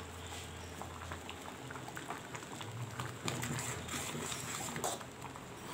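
Pot of sambar simmering on the stove with faint bubbling, and a ladle stirring through it in the second half.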